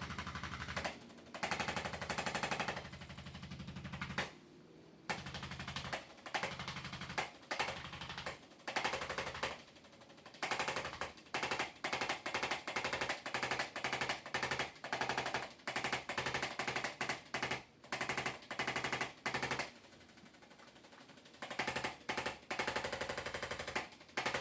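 Electric chiropractic adjusting instrument with two tips, set on either side of the spine, firing rapid taps in runs of one to two seconds with short pauses between them. It delivers a low-force adjustment.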